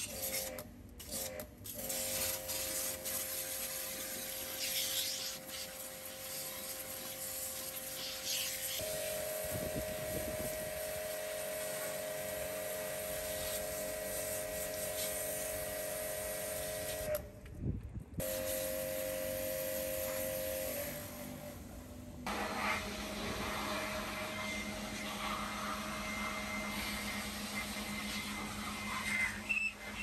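Electric pressure washer running, a steady motor whine under the hiss of its water jet spraying the plastic panels of an air conditioner's indoor unit. The motor's pitch steps up once, the sound breaks off briefly twice, and near the end a lower steady machine hum takes over.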